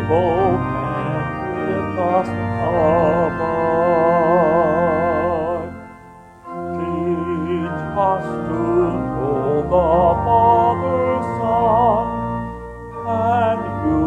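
Hymn sung to organ accompaniment, with a voice singing with strong vibrato above sustained organ chords. The music drops briefly about six seconds in, at a break between phrases, then resumes.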